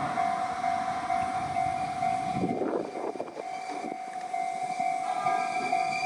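Level crossing warning bell ringing in a steady repeating tone while a Fukushima Kotsu Iizaka Line train passes, its running noise easing about halfway through; further higher steady tones join in near the end.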